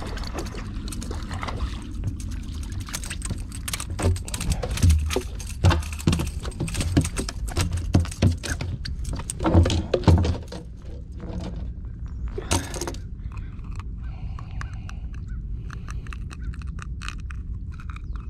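A landed fish and the angler's hands knocking and thumping on a plastic floating dock as the fish is brought in and unhooked: a dense run of knocks over several seconds in the middle, then one sharp knock, over a steady low rumble.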